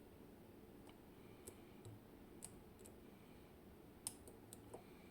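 Faint, irregular small metallic clicks of a lock pick working the pins of a Zikon RW6 dimple lock under tension, about a dozen light taps with the sharpest one about four seconds in.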